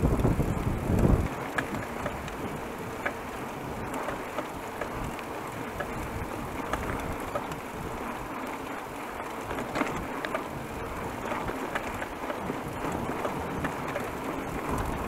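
Bicycle riding along a cracked asphalt road: steady tyre and wind noise with small scattered clicks and rattles. Wind buffets the microphone, strongest in about the first second.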